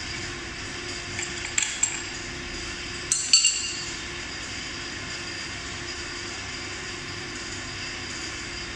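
Metal tool clinks: two light clinks about one and a half seconds in, then a louder ringing clink a little after three seconds as the adjustable wrench comes off the axle nut and is set down on the hard floor. A steady low hum runs underneath.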